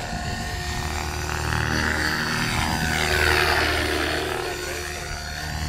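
KDS 600 radio-controlled helicopter in aerobatic flight: the spinning rotor blades whoosh and chop over a steady drive hum. The rush swells a little past the middle as the helicopter swings through its manoeuvre, then eases toward the end.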